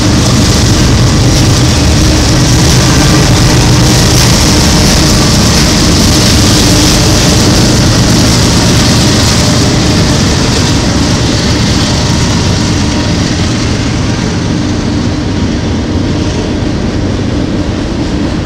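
Norfolk Southern mixed freight train passing: the steady clatter and rumble of freight cars on the rails, with a low diesel engine drone under it, easing off slightly toward the end.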